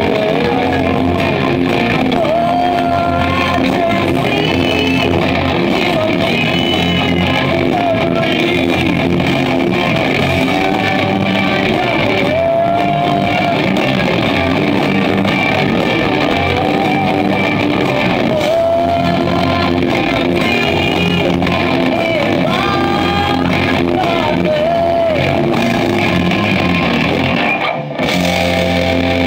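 Live rock band playing loud: electric guitars, bass and drums, with a sung vocal line. The band stops for an instant near the end, then plays on.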